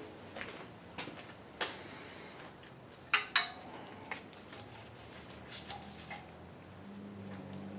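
Short metallic clinks and taps of a 10 mm wrench working bolts on an engine's oil pickup tube, with a loud pair of clinks about three seconds in and lighter ticks after.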